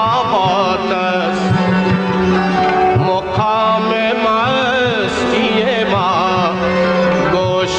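A man singing an ornamented, gliding melody in an Afghan folk song, over instrumental accompaniment with a steady drone and hand-drum strokes.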